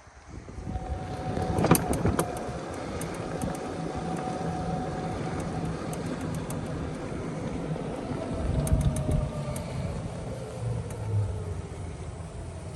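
Golf cart driving along, with a steady motor hum, a faint whine and scattered rattles and knocks.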